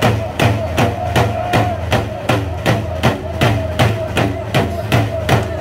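Several hide frame drums beaten together in a steady, driving hand-game rhythm, about four beats a second, with a held sung chant carrying over the drumming.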